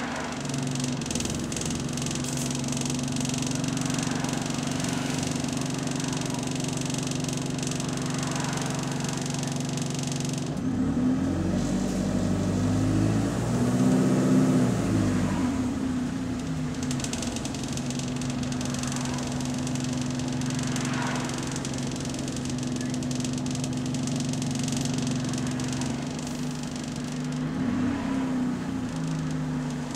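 Bus engine heard from inside the bus, idling steadily in slow traffic. About a third of the way in it revs up, rising in pitch and loudness, then falls back to idle; a shorter rev comes near the end.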